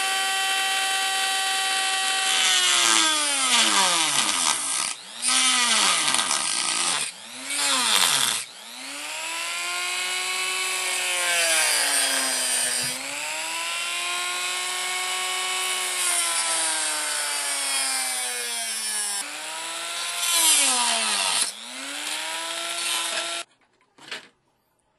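Handheld rotary tool with a cut-off disc cutting through a printed circuit board: the motor whine sags in pitch each time the disc bites into the board and climbs back between cuts, over a gritty cutting hiss. The tool is switched off near the end.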